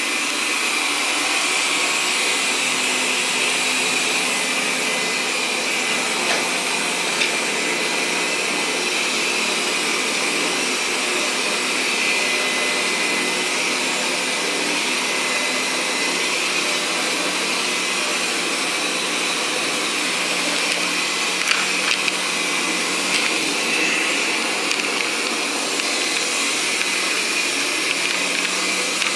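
Steady, unbroken whirring of a small motor or blower, with a few faint clicks.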